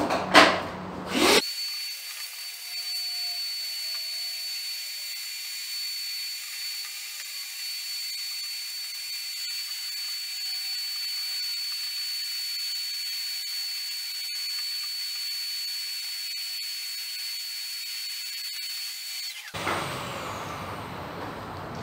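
Vacuum cleaner motor running with a steady high whine, turned down and thin, with its low end cut. It starts about a second and a half in and stops shortly before the end.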